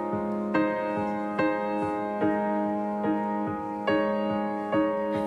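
Nord Stage 3 stage keyboard playing a piano sound: soft chords over a held low note, with an upper note struck again and again in an even pulse.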